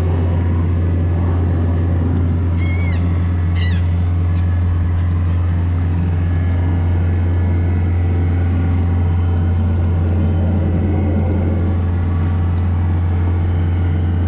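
A Yamaha 90 hp four-stroke outboard runs steadily as a low, even drone while it tows a shrimp trawl net. Two short gull calls come about three seconds in.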